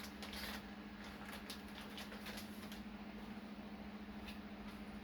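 Faint rustling and scattered light clicks of packaging being handled during an unboxing, over a steady low hum.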